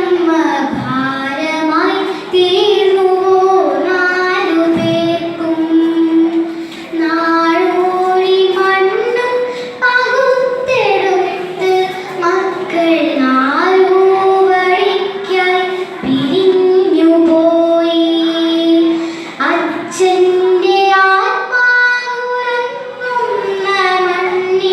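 A young girl reciting a Malayalam poem in a sung, melodic chant, holding long notes that step up and down, with brief pauses for breath.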